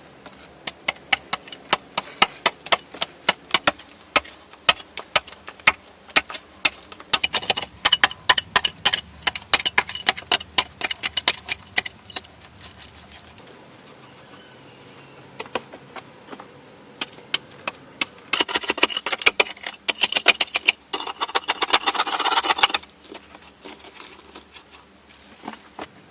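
A long run of rapid, sharp knocks and clicks, several a second, then a few seconds of dense scraping, with a faint steady high-pitched tone behind.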